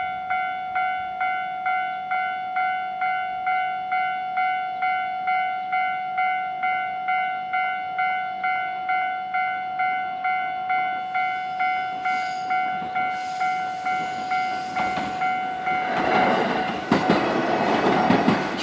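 Japanese level-crossing warning bell ringing, a single repeated electronic ding at a little over two a second. From about three-quarters of the way in, a passing train's wheels and running noise grow loud and drown the bell.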